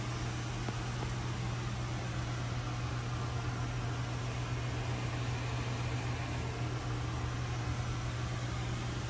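A steady low hum with an even hiss behind it, unchanging throughout.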